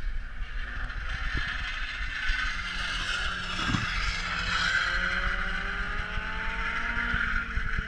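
Race car passing close by on an asphalt oval, its engine and tyre noise swelling to a peak about four seconds in, then the engine pitch climbing steadily as it accelerates away. Wind buffets the microphone throughout.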